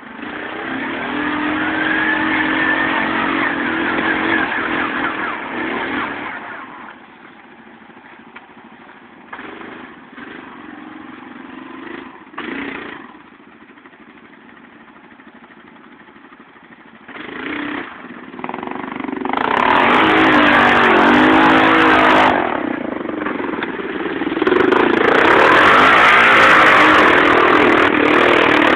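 ATV engine revving hard in low gear under load as the quad churns through deep mud, in surges: a long run at the start, short blips through a quieter middle stretch, then two long loud runs near the end.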